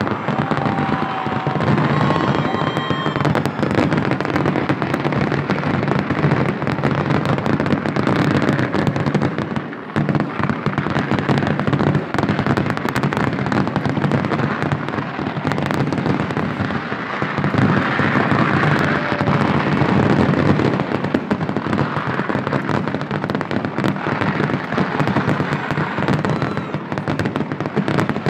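Loud festival fireworks going off in a dense, unbroken barrage: countless bangs and crackles run together into one continuous din. There is a brief lull about ten seconds in.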